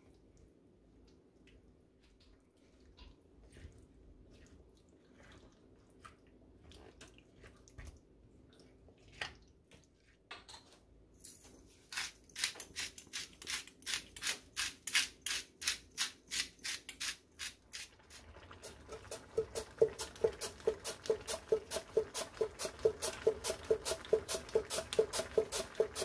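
Rhythmic strokes of kitchen work, about three a second, starting about twelve seconds in after a few scattered clicks. From about nineteen seconds in the strokes are louder and each rings with a low tone.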